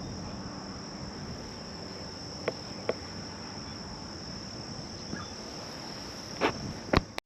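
Insects trilling steadily at a high, even pitch, with a few short light clicks: two about two and a half to three seconds in and two more near the end.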